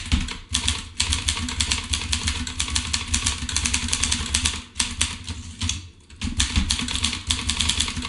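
Fast typing on a Groma Kolibri manual portable typewriter: a quick run of key strikes, each a sharp clack with a thud, broken by two short pauses around five and six seconds in.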